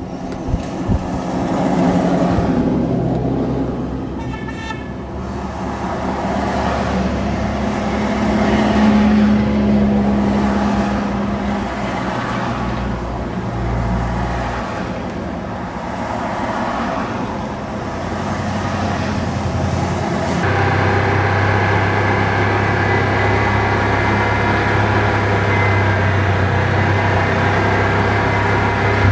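A line of Jeeps drives past, engine and tyre noise swelling and fading as each passes, with a short horn toot about five seconds in. From about twenty seconds in, a steady engine drone comes from a vehicle driving along a dirt trail behind the convoy.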